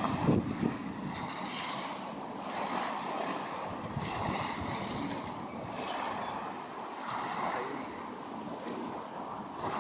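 Wind on the microphone and small waves washing at the shore, a steady rushing noise that swells and falls every second or two, with heavier wind buffeting in the first half-second.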